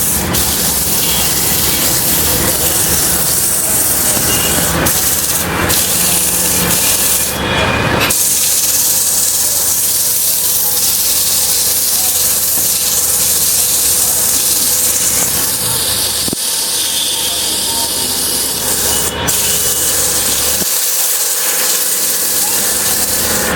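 Wood lathe turning, a cutting tool shaving the spinning wood with a steady, dense hiss over a faint motor hum. The sound changes abruptly a few times, about 8 and 16 seconds in and again near the end.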